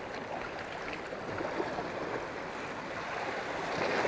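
Sea waves surging and washing against a rocky shore, a steady rush of water that swells louder near the end.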